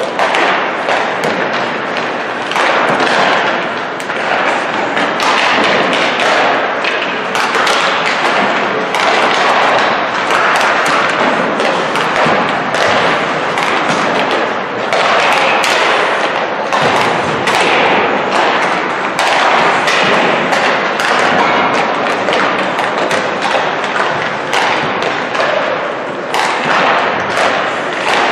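Ice hockey warm-up: a steady clatter of pucks being shot, thumping off sticks, the boards and the glass, many impacts in quick succession.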